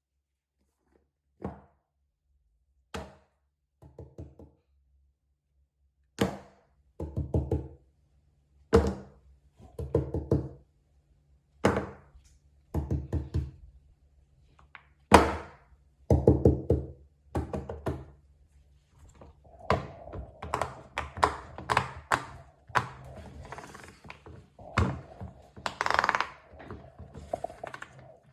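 Plastic fidget toys being handled: separate thunks and taps as toys are set down, then short runs of quick pops, growing busier near the end.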